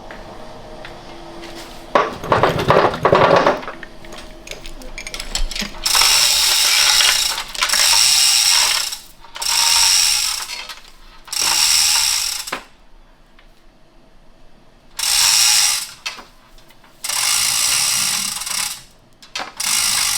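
A loud metallic clatter about two seconds in, then a power ratchet run in a series of about seven bursts of a second or so each.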